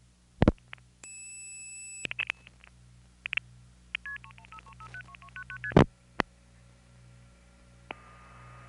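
Telephone trunk signalling on a 1970s long-distance call. There are switching clicks and a high steady tone for about a second, then a fast string of multifrequency tone pairs as the digits are outpulsed, ending in a loud click. Near the end the line settles into a faint tone and a rising hiss of carrier noise.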